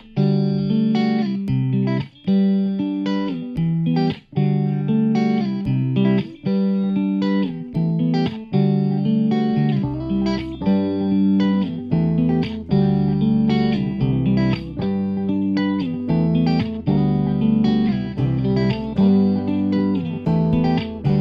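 Instrumental background music carried by plucked guitar notes, with a deeper bass line joining about ten seconds in.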